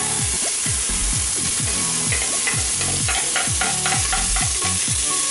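Chopped onions sizzling steadily in hot coconut oil in a pot, with a steady beat of background music under the frying.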